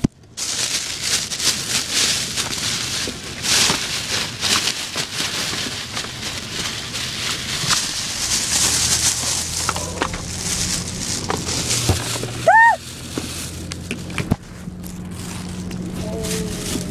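Close rustling and scraping handling noise on a phone's microphone as the phone is moved about and rubbed against fabric. A low steady hum joins about halfway through.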